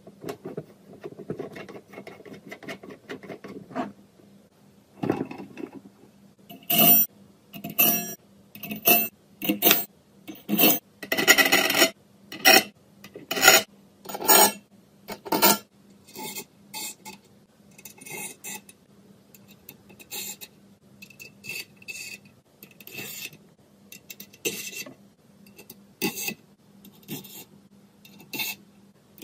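Metal parts of a Stirling-engine stove fan kit scraping and rasping against each other as they are fitted and screwed together by hand. It starts as a faint rubbing, then comes a run of short rasping strokes about one a second, loudest around the middle, which trail off into fainter scrapes.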